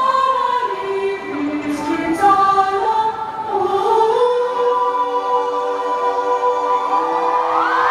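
A large concert audience singing a melody together in unison, holding long notes. A cheer starts to swell near the end.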